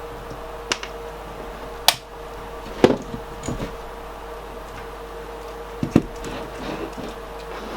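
Small hard objects being handled on a work surface: about six sharp clicks and knocks spread irregularly over a steady faint hum.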